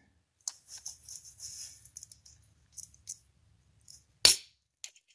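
Needle-nose pliers gripping and working at a tight metal gear shaft in a servo case: faint scraping and small clicks, then one sharp click about four seconds in.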